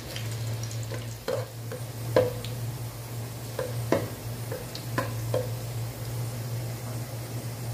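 Chopped garlic sizzling in oil in a metal pot while a metal spoon stirs it, clinking and scraping against the pot about eight times. A steady low hum sits underneath.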